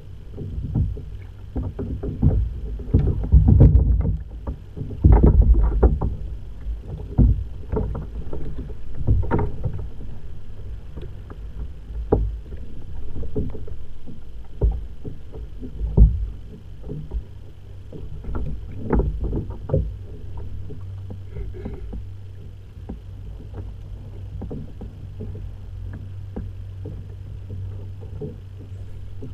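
Small waves slapping against a plastic fishing kayak's hull in choppy water, heard as irregular low thumps over a steady rumble. The thumps are heaviest in the first half and settle into a steadier low rumble later.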